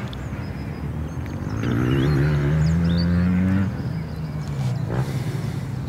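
Motorbike engines accelerating: the engine note rises in pitch and swells from about a second and a half in, then drops away a couple of seconds later. Small bird chirps sound over it.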